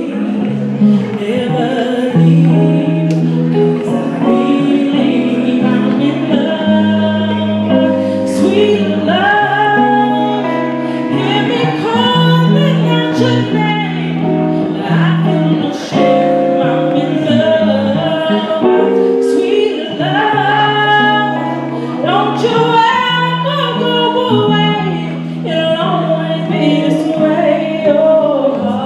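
A woman singing live into a microphone with long held notes, accompanied by guitar.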